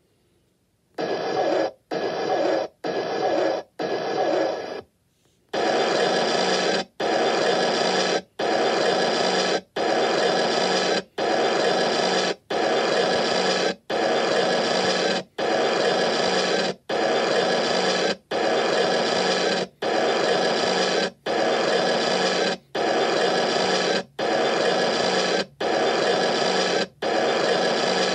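A steady, pitched electronic buzzing sound effect repeated over and over. About a second in, a few short, uneven bursts play, then after a brief pause it settles into regular blocks of about a second and a half, each cut off sharply with a short gap between.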